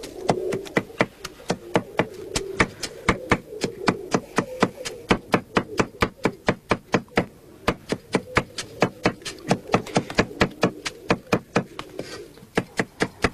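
Kitchen knife chopping on a cutting board in quick, even strokes, about three or four a second, easing briefly near the end.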